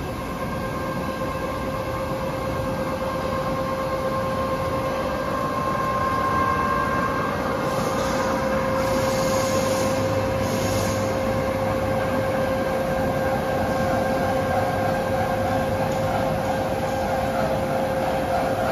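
Steady hum of factory machining machinery, including CNC cylindrical grinding machines for motor shafts, with a couple of held whining tones over a noisy bed. A few short hisses come about halfway through.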